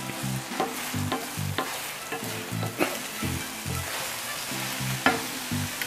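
Eggs sizzling in a nonstick frying pan while a wooden spoon stirs and scrapes through them, with a few sharp knocks against the pan.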